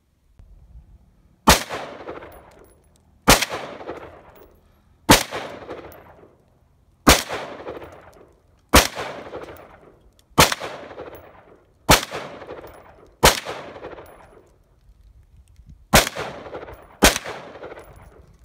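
AR-15 rifle firing ten single shots, about one every one and a half to two seconds, each sharp crack trailing off in a long echo. There is a longer pause before the last two shots, which come close together.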